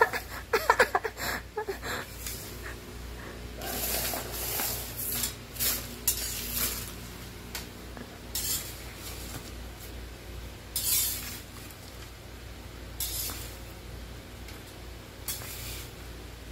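Metal ladle scraping and sweeping across a laminate floor, pushing paper banknotes along with a rustle, in a series of separate swishes a second or two apart.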